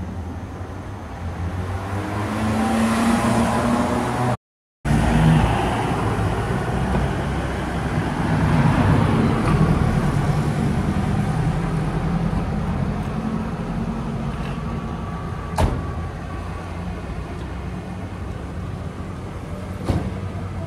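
Street traffic: car engines running and passing, the rumble swelling as a vehicle comes close. The sound cuts out briefly a few seconds in, and there are a couple of sharp clicks later on.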